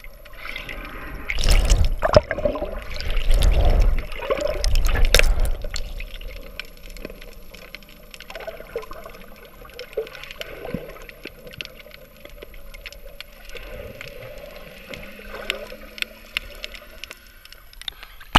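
Water heard through a submerged action camera carried by a swimmer: loud surging and gurgling water for a few seconds after the start, then a quieter stretch with scattered small clicks and crackles.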